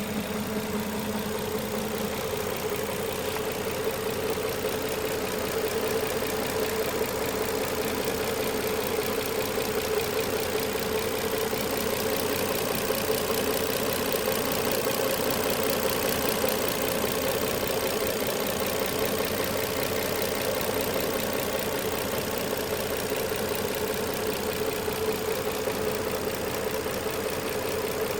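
2007 Nissan Maxima's 3.5-litre V6 idling steadily with a fast, even clicking running through it.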